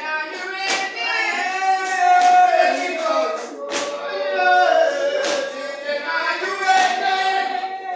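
Congregation of men and women singing together, long held and sliding notes, with a sharp percussive beat about every second and a half keeping time.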